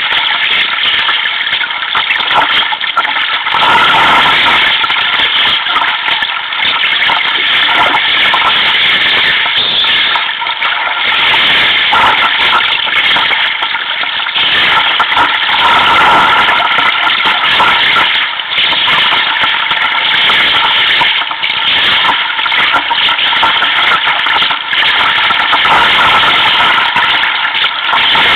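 Loud, steady rushing of wind and choppy sea water against a sea kayak's deck, heard through a camera mounted on the deck.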